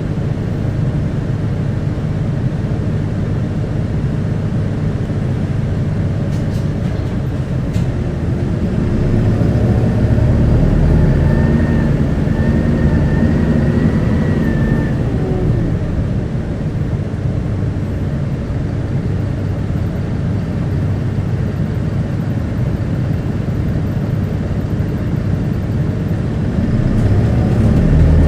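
Interior running sound of a QKG-KV290N1 Isuzu Erga Mio city bus. The diesel engine drone rises in pitch and loudness about nine seconds in as the bus accelerates, holds with a faint high whine, then eases back, and it picks up again near the end.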